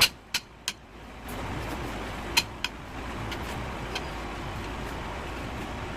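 Several sharp clicks or knocks, three in the first second and two more near the middle, over a steady background rumble.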